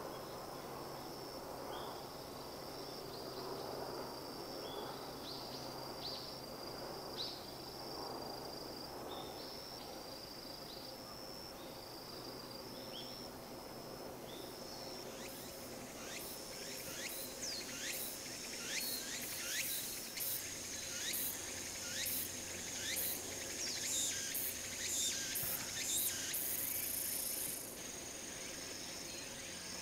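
Insects singing in a ripening rice paddy. A steady, high, cricket-like trill runs throughout. From about halfway a louder song of rapidly repeated, falling high chirps starts, and it ends in a brief buzz shortly before the end.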